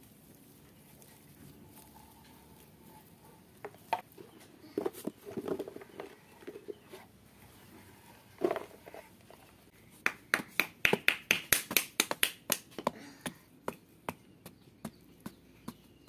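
Hands crumbling and dropping dry garden soil with soft rustling and a few dull knocks. Then a small wooden-handled hand tool chops into dry soil clods: a quick run of sharp strikes, about four a second, that thins out near the end.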